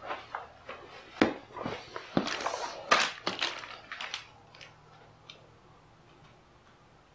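Irregular clicks and clatter of metal hand tools and loose parts being handled while a valve cover is unbolted. The clatter is busiest in the first four seconds, then only a few faint ticks.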